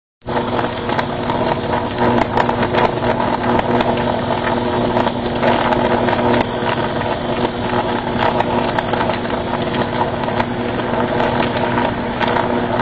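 Electrical arcing from a short circuit on a power transmission line: a loud, steady electrical buzz with crackling over it.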